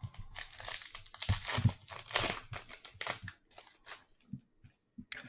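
Crinkling of a foil trading-card pack wrapper being handled, a dense run of irregular crackles that thins out to a few scattered clicks near the end.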